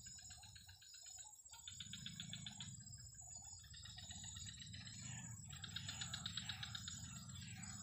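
A faint dusk chorus of insects: fast pulsing trills that grow louder about five seconds in. Under it, a short call repeats about three times a second and a low rumble runs.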